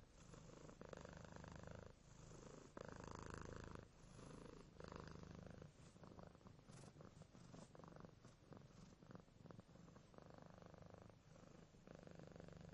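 Domestic cat purring softly, a low rumble that swells and eases in a rhythm of roughly one breath-cycle a second.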